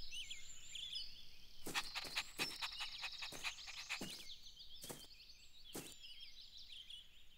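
Faint background birdsong, many quick chirps overlapping, with a scattered run of light taps through the middle.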